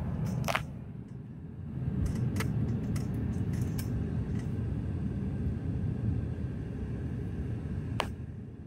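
Steady low rumble of a car's engine and road noise heard from inside the cabin while driving, with a few short clicks.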